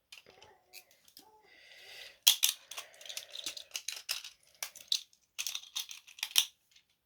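3D-printed Beyblade spinning tops being launched into a plastic stadium. There is a short rising whir from the launcher, then a sharp clack about two seconds in. After that come rapid, irregular plastic clacks and scrapes as the tops collide and ricochet for several seconds.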